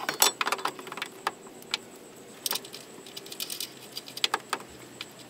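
Hand ratchet wrench clicking in short bursts as a bolt on the front crash support is turned, with light metallic clinks of socket and tool. The densest run of clicks comes right at the start, then a few shorter bursts spread through the rest.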